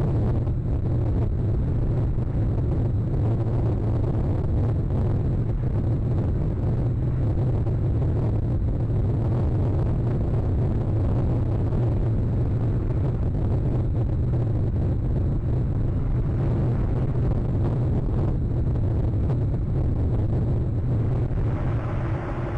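Strong wind buffeting the nest camera's microphone: a loud, steady low rumble.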